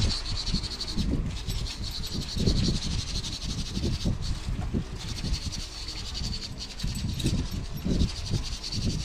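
Wire cup brush scrubbing a rusty iron scale arm under water in a plastic basin, with water sloshing and irregular low knocks as the brush and part move. A steady high-pitched tone runs in the background.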